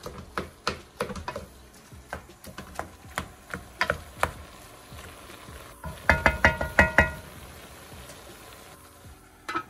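Wooden spoon stirring and scraping ground turkey in a large aluminium pot, with scattered knocks. About six seconds in comes a quick run of sharp knocks that ring like metal, and another louder knock just before the end.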